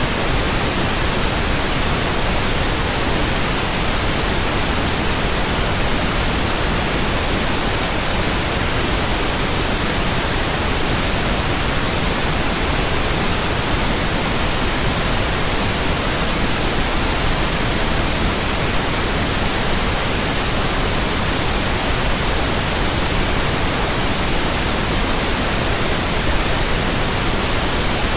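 Steady white noise: an even, unbroken hiss with no heartbeat, rhythm or tones in it.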